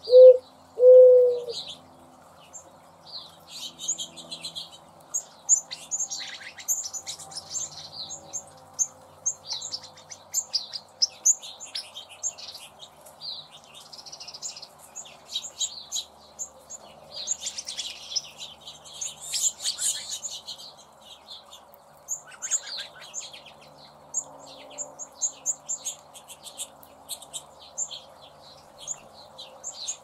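A mourning dove cooing, its low falling notes in the first second or so, followed by sparrows chirping in many short, high, scattered chirps.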